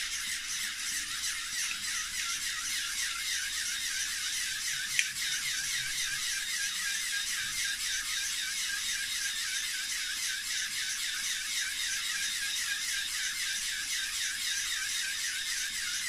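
Motor-driven LEGO pneumatic pumps running steadily, a fast, even mechanical whirring and clicking of pump strokes as they build air pressure for the fountain. A single sharp click about five seconds in.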